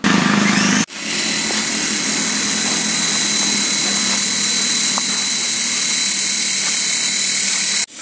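Toy RC helicopter's small electric motors and rotor blades spinning at full speed while it is held in the hand: a steady high whine over a whirring buzz. It cuts out for an instant just under a second in and comes straight back up to speed.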